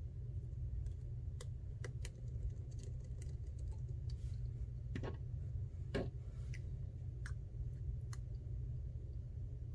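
Small tools and phone parts clicking and tapping as they are handled during phone reassembly. There are scattered light clicks, with two louder taps about five and six seconds in, over a steady low hum.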